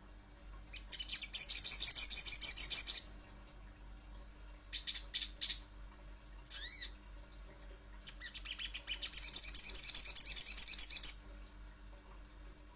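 Sogon (sogok ontong) bird singing: two long, fast, high trills of about two seconds each, with a few short notes and one quick slurred call between them.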